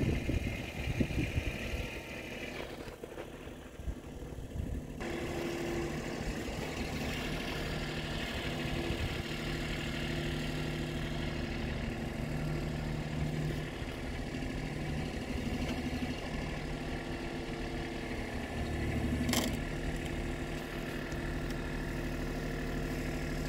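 Compact tractor engine running steadily, from about five seconds in, with a brief rise in load around two-thirds through and a sharp click just after.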